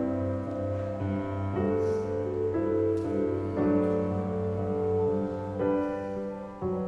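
Piano music playing slow, held chords that change about every second.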